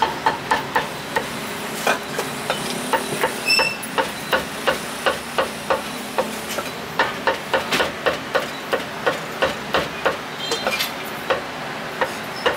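Meat cleaver chopping braised pork offal on a wooden chopping block: a steady run of sharp chops, about two to three a second, with a couple of brief pauses.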